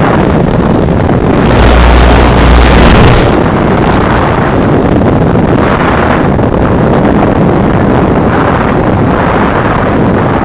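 Loud, steady rushing wind noise buffeting the microphone, with a stronger gust and deep rumble from about one and a half to three seconds in.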